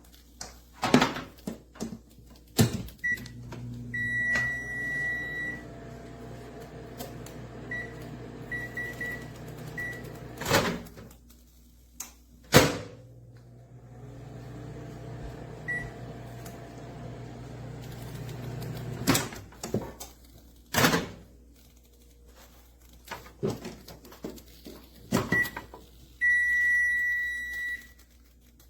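Commercial Chef 0.7 cubic foot microwave being worked: high keypad beeps and a long beep, then the oven running with a steady low hum, stopped by a sharp click of the push-button door release. The cycle repeats twice, ending with a string of beeps and a long beep near the end.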